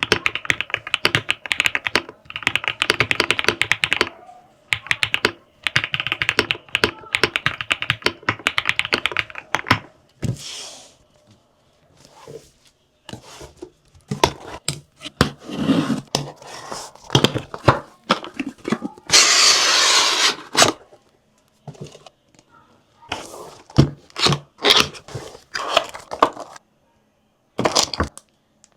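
Fast typing on the ElecFox Gen 75 mechanical keyboard, a dense run of key clicks for about the first ten seconds. Then come scattered thunks and scrapes of the keyboard and its packaging being handled, with a longer rustle of packaging about two-thirds of the way through.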